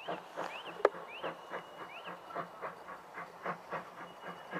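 Small steam tank locomotive No. 22 working a short goods train slowly, its exhaust beating in an even rhythm of about three to four chuffs a second. A single sharp knock sounds about a second in.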